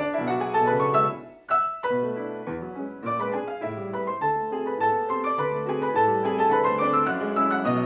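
Grand piano played four hands by two pianists, with dense chords and running notes and a brief pause about a second and a half in.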